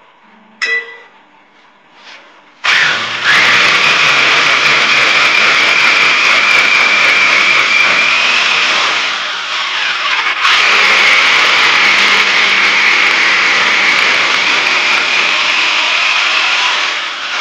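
Corded hammer drill boring into a concrete wall, running steadily and loudly. It starts about three seconds in, slows briefly near the middle, then picks up and keeps drilling until near the end.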